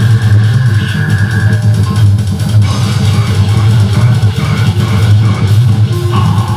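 A metal band playing live: heavily distorted electric guitar riffing over fast drums and bass, loud and dense throughout.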